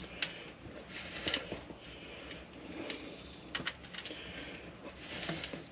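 Scattered light clicks and brief rustling of hands working with wires and fittings, a few separate knocks spread through.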